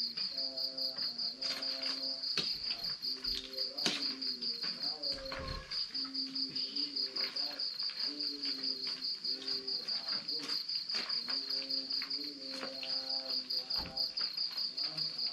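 Crickets chirping in a fast, steady pulsing trill. Behind it a man's voice chants a Quran recitation (ngaji) over a mosque loudspeaker, in long held, wavering phrases. A few sharp clicks are scattered through.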